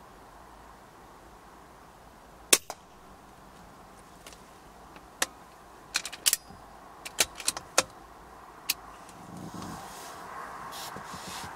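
A BSA Super10 .22 air rifle firing once about two and a half seconds in, a single sharp crack with a smaller click just after. It is followed by a run of sharp metallic clicks over the next few seconds, as the rifle is handled and re-cocked, and rustling near the end.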